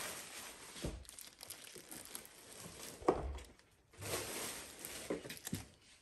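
Plastic wrapping crinkling as the plastic-wrapped handle of a portable fridge-freezer is handled, with a few light knocks in between.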